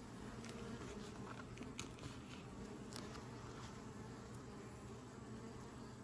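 Honeybees buzzing at a hive entrance as they fly in and out, a faint steady hum with a few faint brief ticks.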